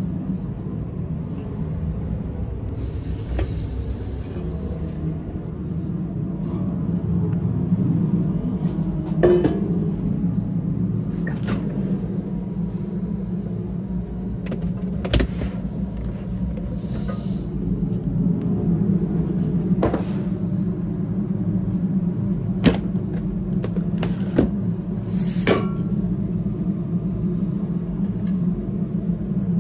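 Cooking-line noise: a steady low rumble with scattered sharp clanks and knocks of utensils and equipment, about half a dozen of them spread across the stretch.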